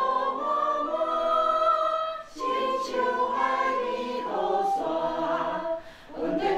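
A small group of men and women singing a hymn together, with a recorder playing along; the singing breaks briefly between phrases about two seconds in and again near the end.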